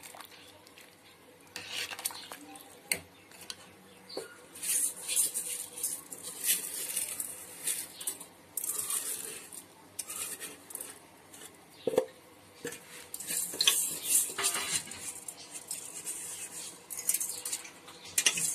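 A ladle stirring rice into a pot of boiling biryani liquid, scraping and knocking against the metal pot in irregular strokes, with a sharp knock about twelve seconds in.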